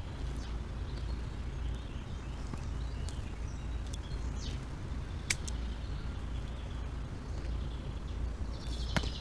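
Outdoor ambience with faint, scattered bird chirps over a steady low hum, with a single sharp click about five seconds in and another near the end.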